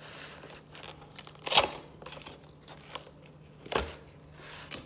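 Kettle packaging being opened and handled by hand: cardboard and packing material crinkling and tearing, with sharp, louder rustles about a second and a half in and twice near the end.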